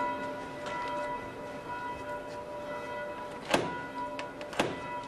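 Ceremonial staff striking the closed door of the crypt twice, heavy knocks about a second apart starting some three and a half seconds in: the knocking for admittance in the Habsburg funeral rite. Faint steady tones hold underneath.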